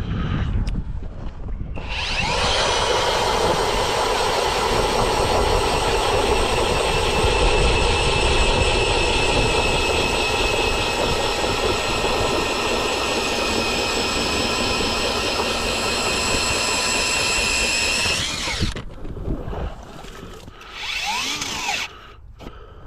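Eskimo E40 battery-powered ice auger drilling a hole through thick lake ice. It is a steady, even whine that starts about two seconds in and cuts off near the end, followed by quieter scraping and knocking.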